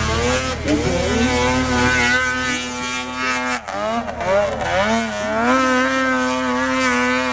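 Snowmobile engine revving hard under load on a steep snow slope. The pitch rises and falls as the rider works the throttle. A little past halfway the revs drop sharply, then climb back and hold high and steady.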